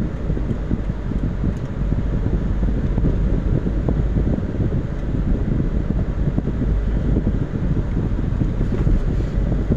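Steady low rumble of a car driving slowly in traffic, heard from inside the cabin: engine and road noise with a constant hiss over it.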